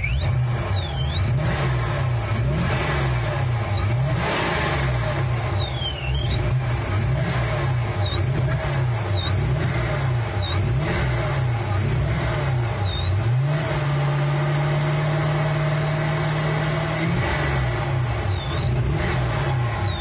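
Supercharged V8 engine blipped by hand about once a second, the supercharger whine rising and falling with each blip. In the second half it is held at a steady fast idle for a few seconds before more blips. It runs with only a slight misfire, which the owner puts down to weak spark.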